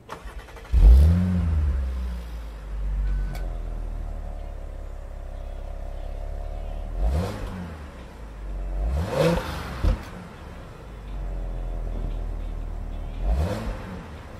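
A 2016 Audi SQ5's 3.0-litre supercharged gas V6, heard from behind at its quad tailpipes, starting up: a brief crank, then a loud flare of revs as it catches, settling to a steady idle. Three quick throttle blips follow, the middle one the strongest.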